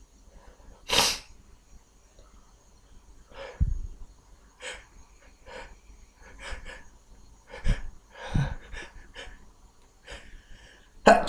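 A man with a head cold sneezes once, loudly, about a second in, then takes a string of short, sharp breaths and sniffs as another sneeze builds. A second loud sneeze breaks out right at the end.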